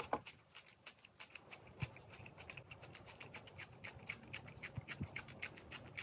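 Close-miked crunching and chewing of a raw cucumber: a quick, dense run of crisp little clicks and crackles, with a couple of soft low thumps.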